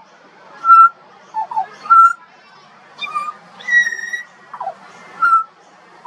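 Juvenile pied butcherbird singing: a loose series of short, clear whistled notes with pauses between them, some sliding downward, and one longer, higher note about midway.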